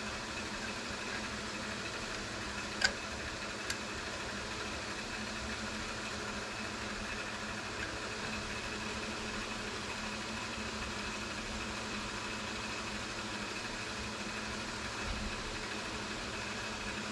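Steady machinery hum with a few constant tones underneath, and a sharp click about three seconds in followed by a fainter one.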